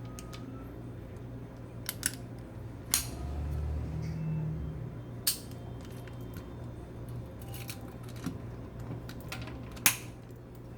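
Metal parts of a Llama Especial .32 ACP pistol clicking and clacking as it is handled and fitted together: about eight sharp clicks at irregular intervals, over a low steady hum.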